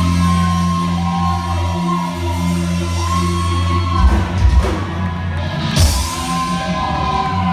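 Live rock band playing amplified music, with held bass notes under a sung vocal line and a few drum hits about halfway through.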